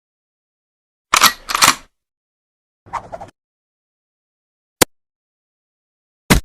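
A run of short, separate sound effects with dead silence between them: two quick hissing bursts just after a second in, a softer crackle about three seconds in, then two single sharp clicks near the end.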